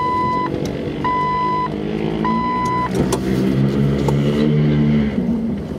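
Jeep engine heard from inside the cabin, pulling along an off-road trail, its pitch rising for a few seconds and dropping off near the end. Three steady electronic beeps sound about a second apart at the start, with a single knock about three seconds in.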